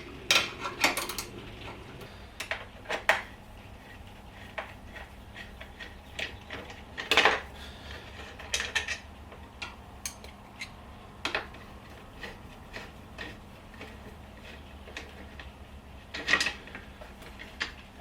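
Scattered metal clinks and knocks of hand tools on bolts and metal fittings as bolts are undone from a motorcycle frame, irregular and unhurried, with sharper knocks about 7 seconds and 16 seconds in.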